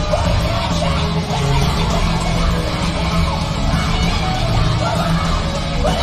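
Live rock band playing loud, dense music with guitars and drums, and a yelled vocal over it, as heard through a concert recording.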